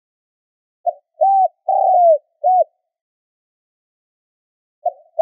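Spotted dove cooing its lure call: one four-note phrase about a second in, with the third note longest and falling away at its end. The next phrase begins near the end.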